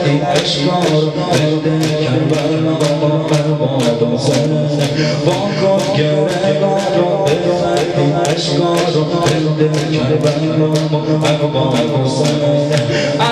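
A man chanting a mourning lament into an amplified microphone, with a crowd of men beating their chests in unison, sharp slaps at a steady pace of about two a second.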